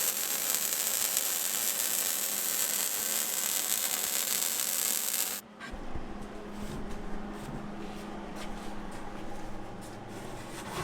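Steady crackling hiss of a welding arc on steel sheet that stops abruptly about five seconds in. It is followed by quieter scraping with scattered light clicks over a low hum.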